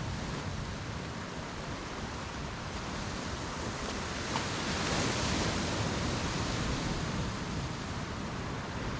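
Ocean surf washing on the shore, a steady rush of waves that swells about five seconds in and then eases.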